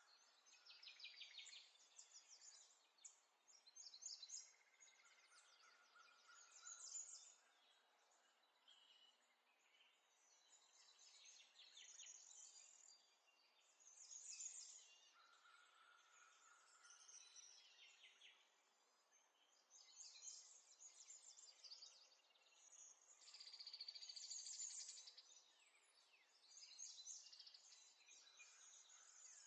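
Near silence, broken by faint, repeated scratchy rustling: a white kitten pawing and clawing at a hand and a string on a rug.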